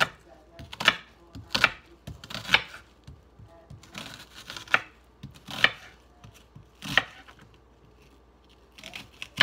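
Kitchen knife slicing a red onion on a wooden cutting board: a series of sharp knocks of the blade through the onion onto the wood, irregular and about a second apart, with a pause of about two seconds before the last cuts near the end.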